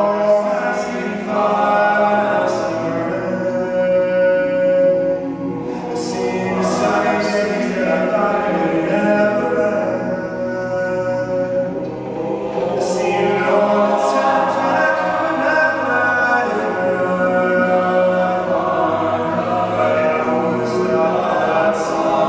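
All-male a cappella group singing live, with a lead voice at the microphone over the group's backing harmonies and no instruments.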